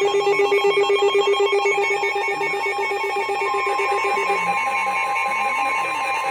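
Emergency alert tones between two broadcast severe thunderstorm warnings: a rapidly pulsing, buzzing alert tone, joined about three and a half seconds in by a single steady high tone that carries on as the pulsing stops.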